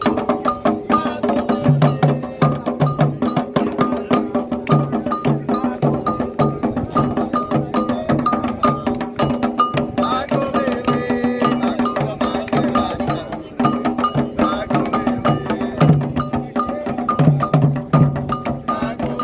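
Candomblé toque: atabaque hand drums playing a fast, steady rhythm under a ringing metal agogô bell that keeps the repeating pattern.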